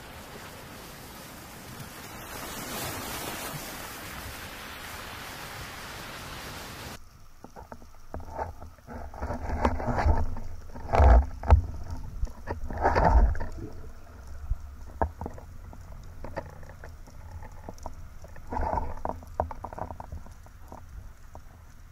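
A steady hiss for about seven seconds, then, from an underwater camera in a waterproof housing, muffled knocks and low rumbles of a freediver moving, loudest for a few seconds around the middle, with scattered lighter knocks after.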